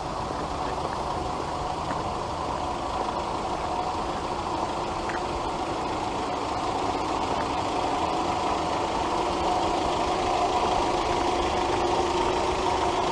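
A motor vehicle's engine running at a steady pitch and slowly growing louder.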